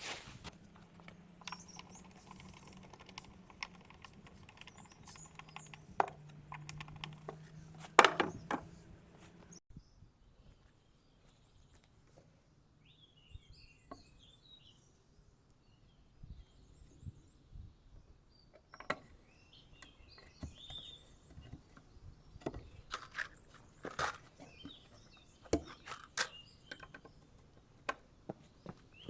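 Scattered knocks and clicks of a wooden shipping crate being taken apart. A steady low hum runs through the first third and stops abruptly, and faint bird chirps come and go.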